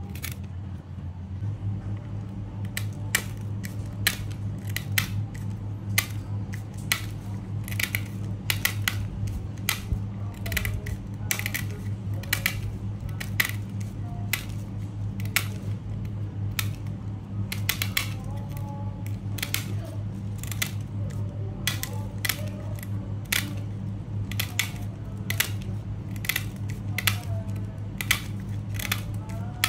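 Small scissors snipping around the edge of a plastic progressive spectacle lens, one short sharp snip after another, roughly one to two a second, over a steady low hum.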